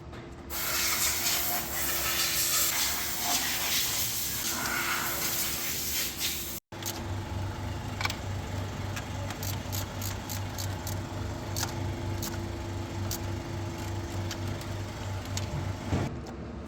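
A loud spraying hiss for about six seconds, like compressed air or an aerosol cleaner being sprayed. After a sudden break comes a steady low pulsing hum with scattered light clicks.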